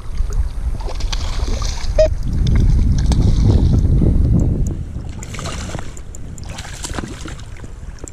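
Water sloshing and lapping against a camera held at the water's surface, with small splashes and wind buffeting the microphone; loudest from about two to four and a half seconds in.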